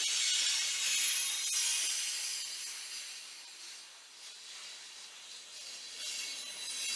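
Covered hopper cars of a CSX freight train rolling past, a steady high hiss of steel wheels on rail with a faint click or two. It eases off in the middle and swells again near the end.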